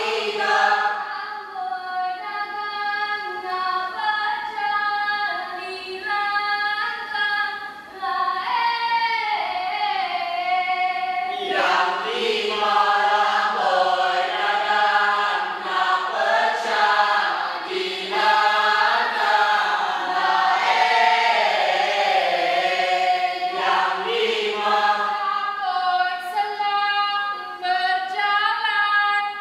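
A group of voices singing a Mek Mulung dance-drama song together, a sustained melody with sliding pitches. The singing grows fuller and louder about a third of the way in.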